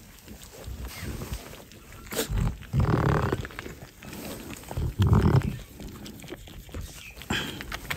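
Sheep bleating twice, two short, low calls about two seconds apart.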